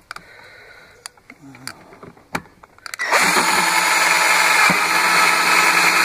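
A few light clicks and knocks, then about halfway through an electric drill starts and runs steadily, drilling a hole through the plastic rim of a washing machine tub.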